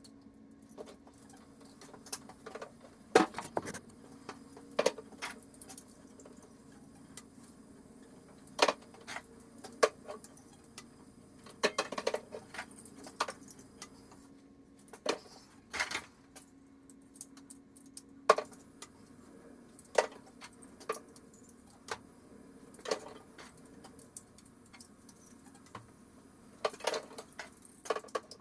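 Small hard plastic parts clicking and knocking as they are handled, in irregular single clicks about once or twice a second, over a faint steady hum.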